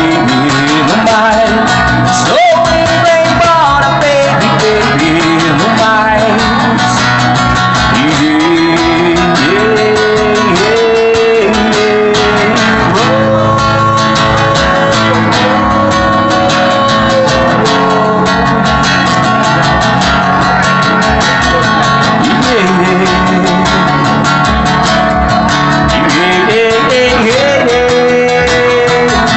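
Two guitars playing an instrumental break: a lead guitar plays a melodic solo of held, sliding notes over a strummed rhythm guitar.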